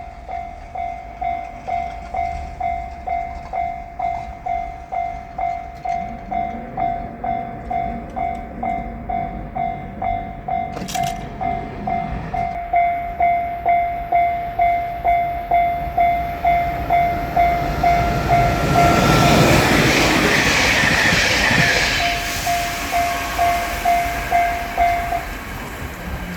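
Japanese level-crossing alarm bell ringing its steady 'kan-kan' about twice a second as a JR Shikoku 8000 series electric train approaches and passes through. The train's running noise swells to its loudest about three-quarters of the way in and nearly buries the bell, and the bell stops shortly before the end.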